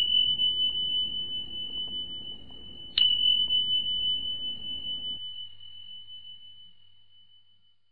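A high, pure bell-like chime tone, struck at the start and again about three seconds in, each time ringing on and slowly fading away.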